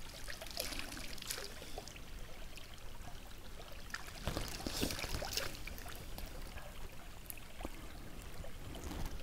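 Shallow river water splashing and trickling in small, scattered bursts as hands scoop it up and let it pour back.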